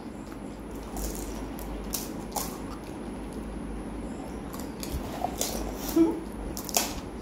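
Panipuri being eaten at speed: crisp puri shells cracked open and chewed, with wet mouth sounds and light handling clicks. There are a few sharp crunches, the loudest about six seconds in.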